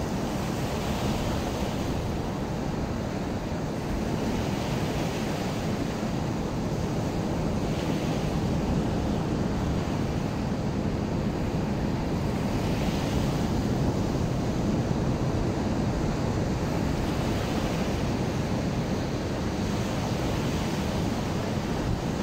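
Ocean surf breaking against a rocky shore: a continuous wash of waves that swells every few seconds as each one breaks, with wind rumbling on the microphone.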